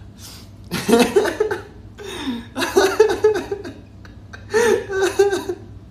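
A man laughing hard, in three bursts.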